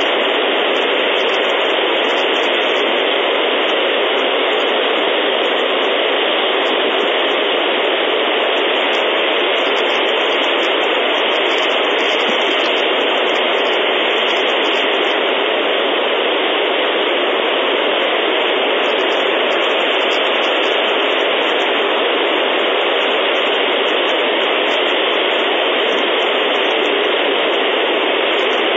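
Steady, loud hiss of static from the nest camera's audio feed. No bird calls stand out.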